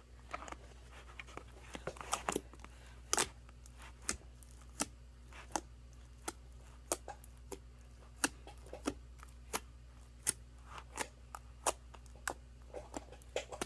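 Slime being kneaded by hand, giving sharp little clicks and pops as air is squeezed out of the heavy mass, a little more than one a second and fairly regular.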